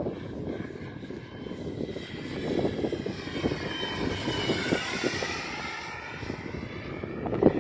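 Small jet aircraft flying past low, its engine whine swelling to a peak about halfway through and sliding in pitch as it passes, then fading. Wind rumbles on the microphone throughout.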